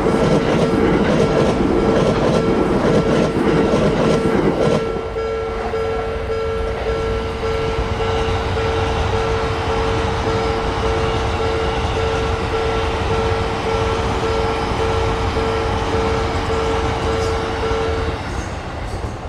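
Train running on the rails, loudest for the first five seconds and then fainter. A steady tone sounds alongside it and stops about a second before the end.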